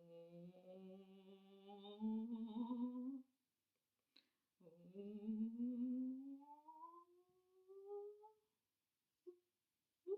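A woman humming two long phrases, each slowly rising in pitch, with a short pause between them.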